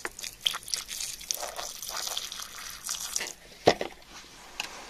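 A thin jet of water spraying and splashing over glassy crystals and gritty soil, a steady hissing splatter that stops about three seconds in. A single sharp click follows shortly after.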